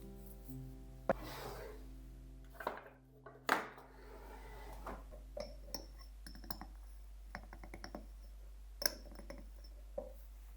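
Kitchenware being handled: scattered clinks and knocks of dishes, glass and cutlery, with a quick run of small ticks partway through.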